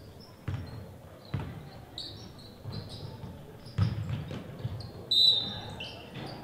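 Basketball dribbled on a hardwood gym floor, a few irregular bounces, with sneakers squeaking on the court; the loudest squeak comes about five seconds in.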